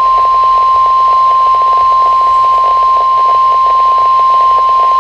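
NOAA Weather Radio 1050 Hz warning alarm tone: one loud, steady, high beep over radio reception noise, the signal that sets off weather alert receivers, sent here as the weekly test of the alarm.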